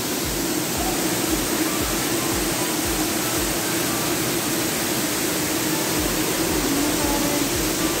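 Artificial waterfall pouring down a rock face into a pool: a steady, even rush of falling water, with a faint low hum under it.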